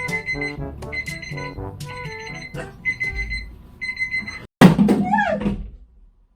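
Novelty alarm clock going off: a high beep repeating about once a second over a electronic tune. About four and a half seconds in it stops with a loud sudden knock, followed by a short wavering sound that falls in pitch, then silence.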